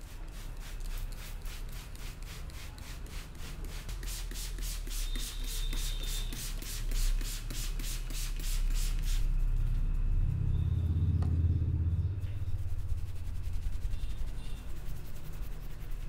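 Hand-pumped plastic water spray bottle squirted over and over in quick succession, several hissing sprays a second, wetting hair. The spraying stops about nine seconds in, and hands rub and massage the damp hair and scalp.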